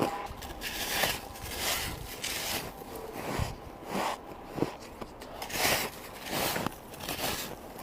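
Ice being bitten and chewed: a string of irregular crisp crunches, about one or two a second.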